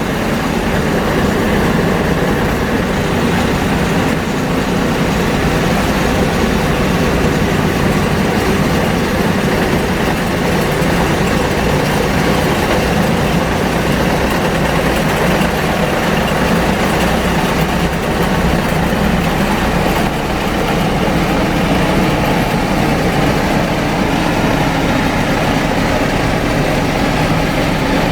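Heavy machinery engine running steadily, a constant loud mechanical drone.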